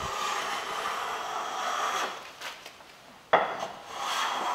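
Smoothing plane with a freshly honed, cambered blade taking shavings along a wooden board: a long planing stroke ending about two seconds in, a sharp knock a little after three seconds, then another stroke starting. The blade is cutting cleanly, lifting a thin shaving that is thicker in the middle.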